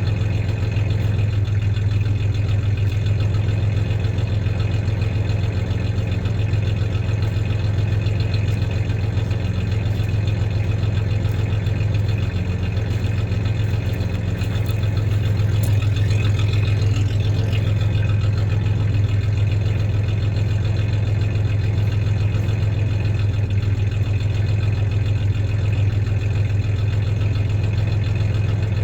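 1993 Ford Ranger's 3.0-litre V6 idling steadily with a slight misfire.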